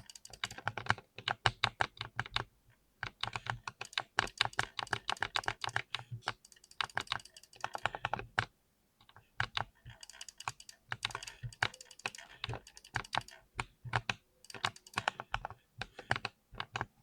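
A keyboard being typed on fast: a dense, continuous run of key clicks, with a brief pause a little past halfway.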